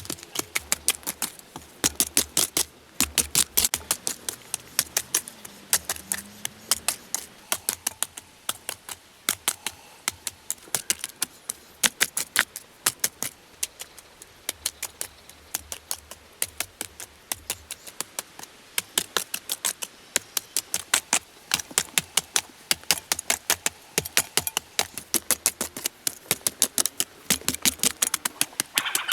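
Quick, sharp knocks and taps, several a second, coming in irregular clusters with short pauses between.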